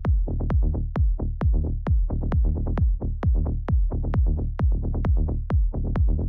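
Electronic dance music from a tech house DJ set: a heavy kick drum about twice a second over a deep bass, with short pitched synth notes and no hi-hats.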